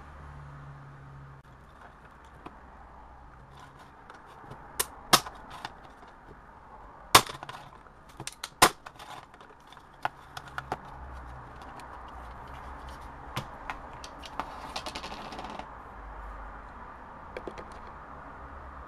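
Scattered sharp clicks and snaps of a smoke alarm's hard plastic parts being pried and taken apart by hand. The loudest cracks come between about five and nine seconds in, with lighter clicks and a brief rustle later.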